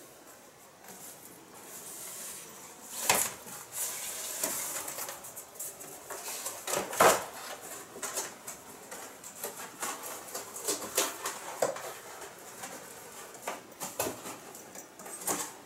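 Cardboard and molded-pulp packaging scraping and rustling as a cat paws and digs at it, with scattered sharper knocks, the loudest about three and seven seconds in.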